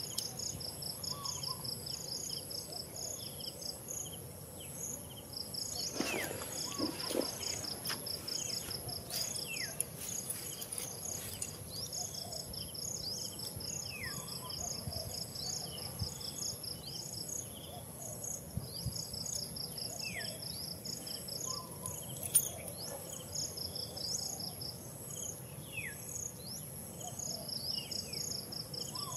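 Insect chorus: a steady high-pitched drone with rapid pulsed chirping that starts and stops in runs of a few seconds, while a bird gives short falling whistles every couple of seconds. A single sharp click stands out about three-quarters of the way through.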